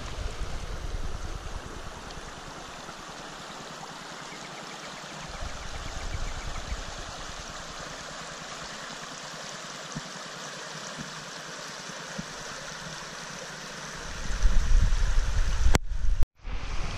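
Shallow creek water running and rippling over a stony crossing, a steady rushing. Near the end a louder low rumble rises over it, and the sound cuts out briefly.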